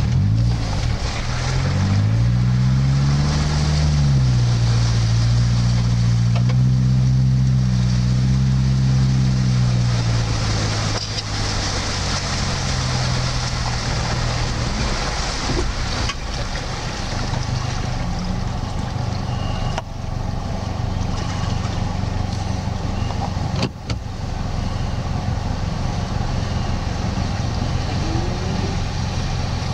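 Off-road 4x4 engine pulling through a shallow stream: the revs climb over the first few seconds, hold under load, then fall away after about ten seconds to a steady low running hum. A hiss of water being pushed aside accompanies the loud stretch.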